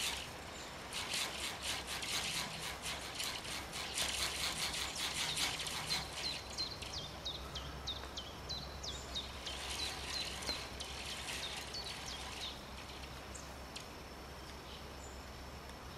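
Fast run of sharp clicks, then a small bird's short high chirps repeated several times a second, dying away a few seconds before the end.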